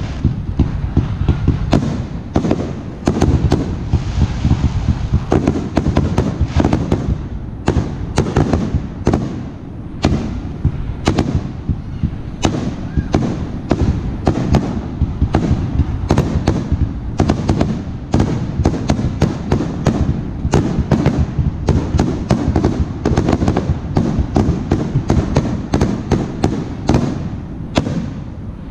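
Aerial firework shells bursting in a steady barrage: many sharp bangs and crackles a second over a low rumble, with a few brief lulls.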